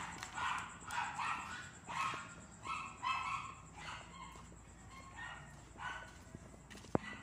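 A dog barking over and over, about one to two barks a second, the barks growing fainter in the second half.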